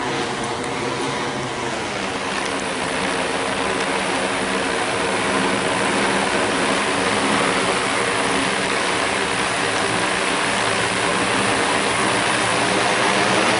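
Large multirotor drone's electric motors and propellers whirring steadily as it descends to land. The hum drops in pitch about two seconds in and grows a little louder near the end.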